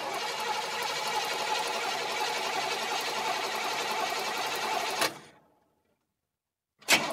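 A car engine cranking on its starter motor without catching: a long, even, fast rattling crank that stops with a click about five seconds in, then a second attempt starting near the end.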